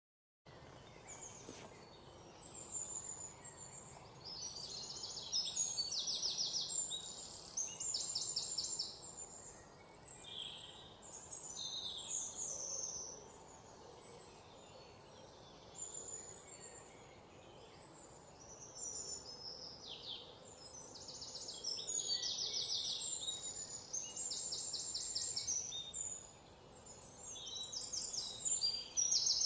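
Small birds chirping and trilling: high-pitched calls in quick pulsed runs that come and go in waves, with a few falling notes, over a faint steady hiss.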